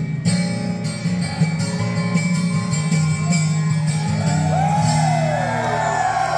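A live country band's acoustic guitars ring out on the song's held final chord. Audience whoops and cheers rise over it from about four seconds in.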